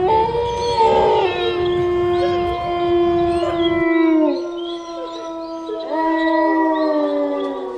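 Several canines howling together in long, overlapping held notes that fall in pitch at their ends, over a low rumble that cuts off about four seconds in.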